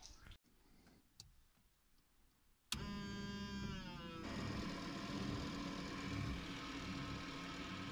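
Citroën BX 14 RE heard from inside the cabin: about three seconds in, a whine starts suddenly and falls in pitch for over a second. It gives way to a steady mechanical running sound with a hiss while the single windscreen wiper sweeps and the washer jets on its arm spray.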